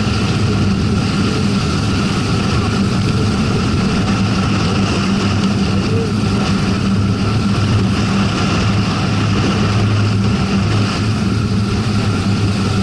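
Vehicle driving steadily on a paved road: constant engine hum and tyre-on-road noise.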